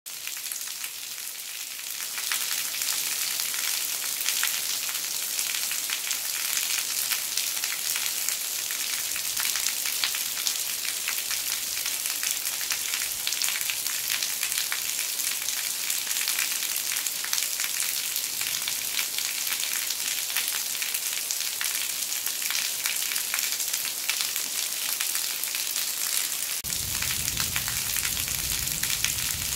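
Heavy rain, with runoff water pouring off the eaves of a traditional Korean tiled temple roof: a dense, steady hiss of pattering drops that grows louder about two seconds in. A low rumble joins near the end.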